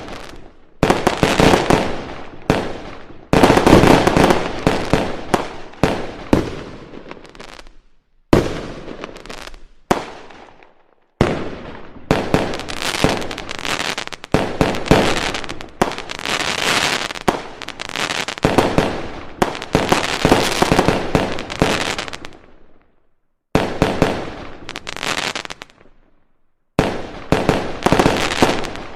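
Fireworks going off: dense volleys of sharp cracks and bangs that stop and start again several times.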